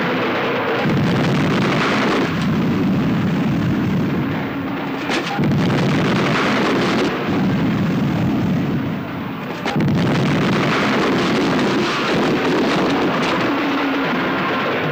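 Loud, low rumbling soundtrack effect of repeated blasts, swelling in surges of a second or two with brief dips between them.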